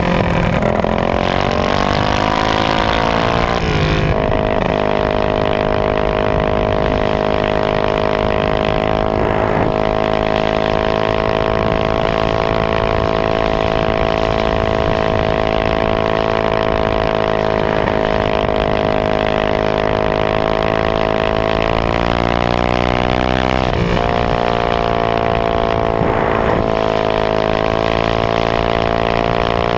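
Modified Honda GX160 single-cylinder four-stroke engine of a minibike running at high, steady revs at speed. The pitch wavers near the start, dips briefly about three quarters of the way through, then climbs back. Wind noise lies underneath.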